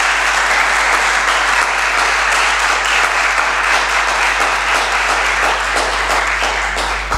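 Audience applauding: steady clapping from many hands that stops near the end.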